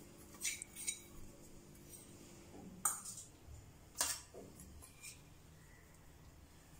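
Light clinks of a small stainless-steel bowl against a large steel plate as chopped coriander is tipped onto the flour. There are four or five separate short clinks, the clearest about three and four seconds in.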